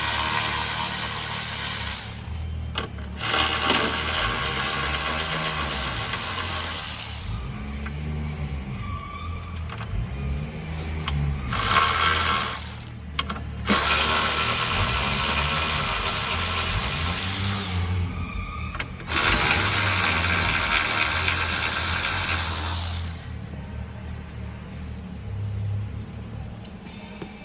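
Power driver running in about five bursts of a few seconds each, with short pauses between, backing out the door's T40 Torx screws and 10mm bolts.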